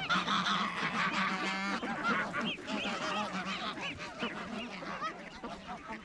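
A flock of domestic geese honking, with ducks quacking among them: many short calls overlapping at once, including a quick rattling run about a second and a half in. The calling thins out and grows quieter toward the end.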